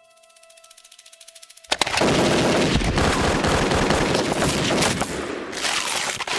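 Quiet faint ticking, then about a second and a half in a sudden, dense barrage of rapid pistol gunshots that keeps going without a break.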